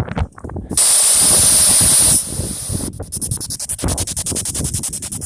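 P-SB7 spirit box radio switched on. About a second in it gives a loud, steady burst of static hiss for over a second, then a rapid, even chopping as it sweeps through the radio band many times a second.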